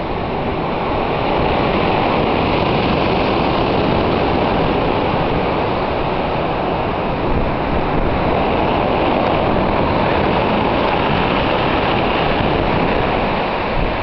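Storm surf on the Black Sea breaking and washing over a pebble beach: a loud, continuous rushing wash, with wind rumbling on the microphone.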